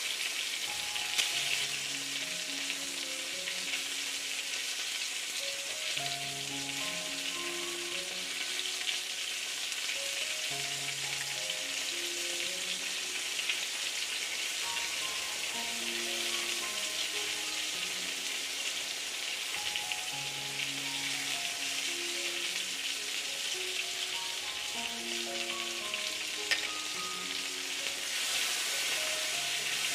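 Chicken sizzling steadily as it fries in oil in a pan, with a couple of small clicks, over soft background music of short held notes.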